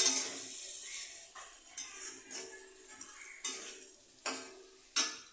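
Thin masoor dal coming to a boil in an aluminium kadai: a sizzling hiss with sharp pops from bursting bubbles every half second to a second, fading towards the end.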